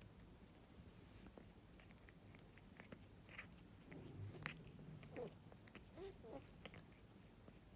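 Faint, wet clicking and smacking of an Exotic Shorthair cat's tongue as it licks and grooms another cat's head fur, mostly in the second half.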